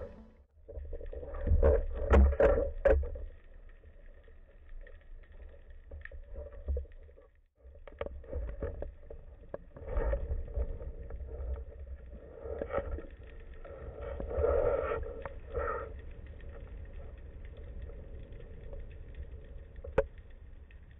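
Underwater water noise picked up through a camera's waterproof housing as a spearfisher dives: a muffled rushing and bubbling that surges loudest in the first few seconds and swells again several times, with one sharp click near the end.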